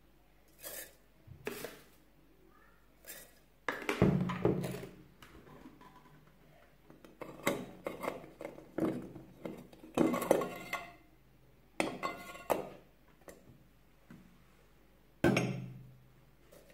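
Stainless steel tea infuser knocking and clinking against a glass teapot as it is handled. It makes a string of irregular clinks and knocks, the loudest about four seconds in and near the end.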